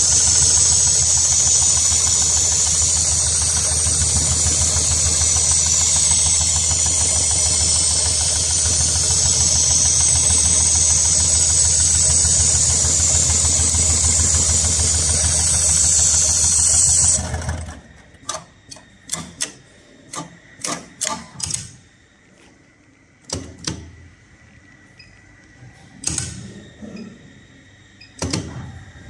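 HighTex 7273CNC heavy-duty programmable pattern sewing machine running steadily as it stitches a pattern through safety-harness webbing held in its clamp plate, then stopping suddenly about 17 seconds in. After it stops there are scattered sharp clicks and knocks.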